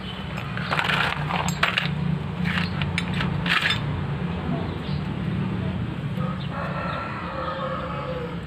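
Light metallic clicks and clinks of small carburetor parts being handled and set down during disassembly, a few sharp ticks in the first few seconds, over a steady low hum.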